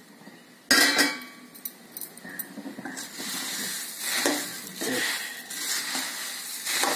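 A steel spoon stirring dry puffed paddy through syrup in an aluminium kadai, with the rustle and crunch of the grain and the spoon scraping and clinking against the pan. The sound starts abruptly under a second in and comes in uneven swishing strokes.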